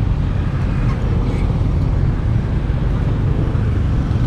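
Steady low road rumble of a moving vehicle, with an even noise layer over it.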